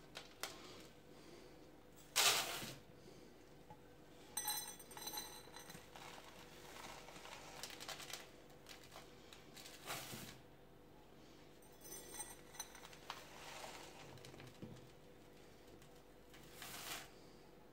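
Small metal measuring cup scooping dry four-grain cereal flakes from a plastic tub: scattered rustling, scraping and clinking, with the loudest knock about two seconds in.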